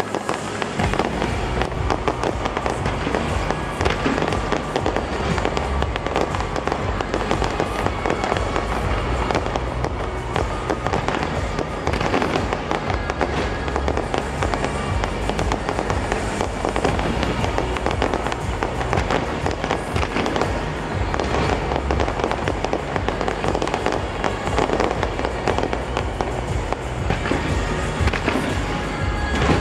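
Fireworks display firing close by: a continuous rapid barrage of launches, bangs and crackle with no pause.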